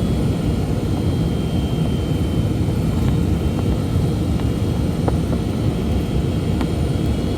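Steady low rumble of a Boeing 757 in flight on descent, heard from inside the passenger cabin: jet engine and airflow noise.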